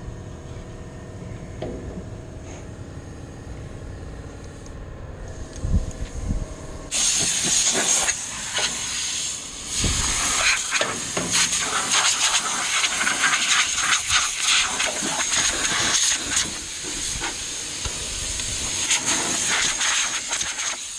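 A steady low machine hum, then about seven seconds in a compressed-air nozzle opens up with a loud, steady hiss that crackles as it blows chaff out of a round baler.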